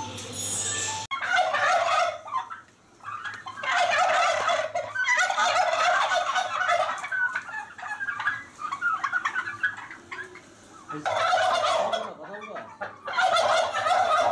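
A flock of domestic turkeys gobbling. Starting about a second in, several bursts of gobbling come in rapid runs, with quieter gaps between them.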